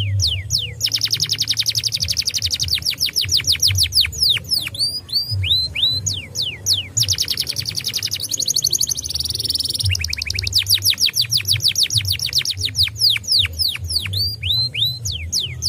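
Domestic canary singing a long, continuous song: fast trills of rapidly repeated downward-sweeping notes, a buzzy rattling phrase about halfway through, and slower, spaced falling whistles near the start and the end.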